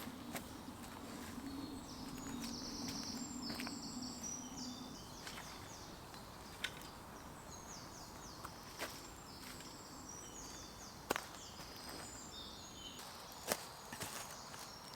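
Small birds singing fast, high trilled phrases over and over, with a low hum that fades out about five seconds in and a few sharp clicks and knocks.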